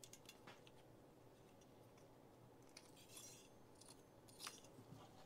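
Near silence broken by a few faint clicks and a short light rattle of small foosball rod parts being handled. The clearest click comes about four and a half seconds in.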